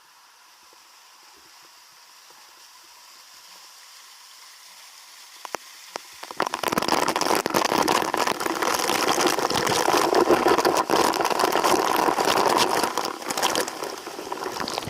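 Rushing, splashing stream water, faint and slowly growing at first, then loud from about six seconds in, cutting off abruptly at the end.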